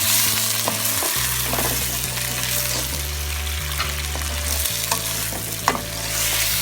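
Chicken and onions sizzling as they fry in oil in a pan, with a spoon stirring and clicking against the pan several times.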